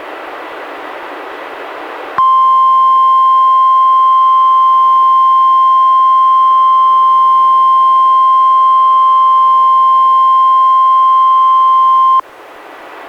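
NOAA Weather Radio 1050 Hz warning alarm tone during a required weekly test: one loud, steady tone that starts about two seconds in, holds for about ten seconds and cuts off abruptly. Radio hiss is heard before and after it.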